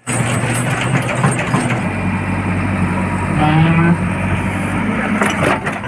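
Heavy diesel engine running steadily, with a constant low hum, from a backhoe loader or a ten-wheeler truck at work in soft ground.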